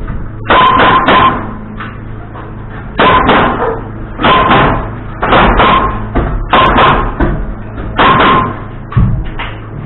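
Nails being driven into framing lumber: about fifteen sharp, loud strikes, mostly in quick groups of two or three, each with a brief ring.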